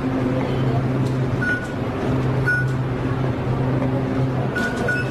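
Short, high electronic beeps from station fare-gate card readers, four in all, as people tap through the ticket gates. Under them runs music with a low, steady bass line.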